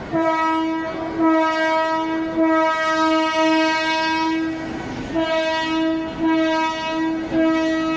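Mumbai suburban local train horn sounding two long blasts, each held at one steady pitch. The first lasts about five seconds and the second starts straight after it.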